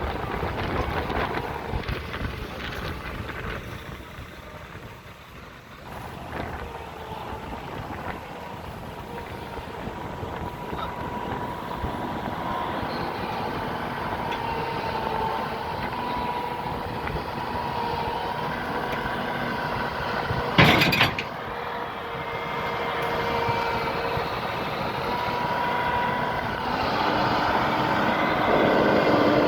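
Heavy truck hauling a road roller driving on the road: steady engine and road noise that slowly grows louder, with one short, loud burst of noise about two-thirds of the way through.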